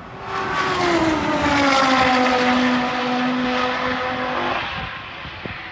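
Race cars passing at full throttle in a roll race: a loud engine note swells in, drops in pitch as they go by, then falls away down the track about four and a half seconds in.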